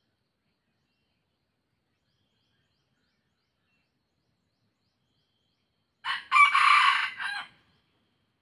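A half-wild junglefowl-cross rooster crows once, about six seconds in: a brief opening note, then a longer phrase that cuts off sharply, about a second and a half in all. Near silence before the crow.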